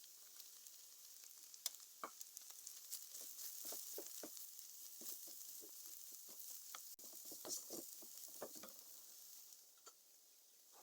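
Food frying in hot oil in a pan: a faint, steady sizzle with scattered crackles and pops, stirred now and then.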